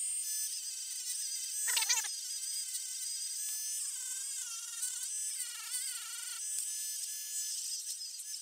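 Dremel rotary tool spinning a small polishing wheel against the steel rivets of a leather sheath: a high-pitched motor whine that wavers in pitch as the wheel is pressed on and eased off, with a brief louder squeal about two seconds in.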